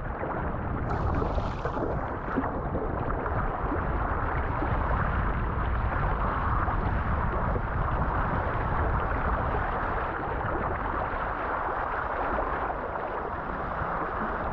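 Steady rushing and sloshing of ocean swell around a sea kayak, with no single splash or break standing out.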